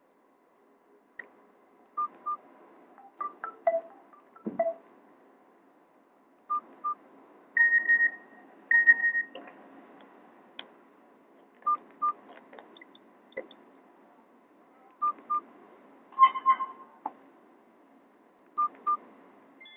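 Nokia E50 ringtone playing through a Nokia 216 phone's small loudspeaker: a pattern of short electronic beeps and tones. A pair of quick high beeps comes back every few seconds, and two longer held notes sound about eight and nine seconds in.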